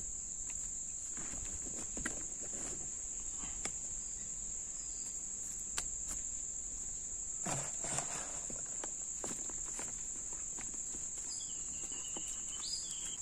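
A steady, high-pitched chirring of insects, crickets or similar, with scattered faint rustles and light clicks as hands press coconut husk pieces and brick bits into a plastic pot.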